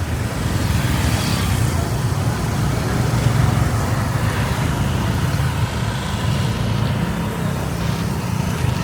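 Steady road traffic noise: vehicle engines and tyres running with a constant low rumble.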